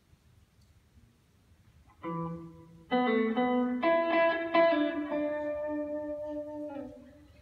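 Electric guitar played slowly. After a quiet start it gives a short low note about two seconds in. From about a second later comes a run of ringing notes that overlap and hold on, then fade away near the end.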